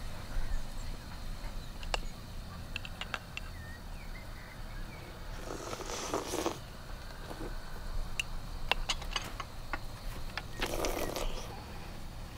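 A spoon clinking lightly against a china cup, with two short slurps about six and eleven seconds in as someone eats from it, over a low steady rumble.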